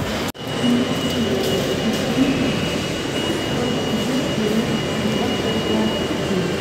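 Metro station escalator running: a steady mechanical rumble with a thin, steady high whine, heard after a momentary dropout just after the start.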